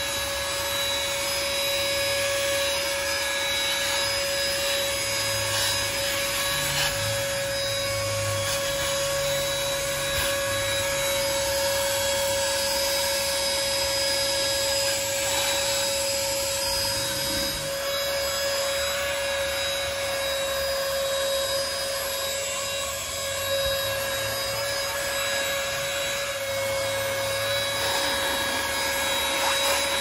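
Farasla cordless handheld car vacuum running steadily with a high whine, its crevice nozzle rubbing and scraping over a rubber floor mat and a seat.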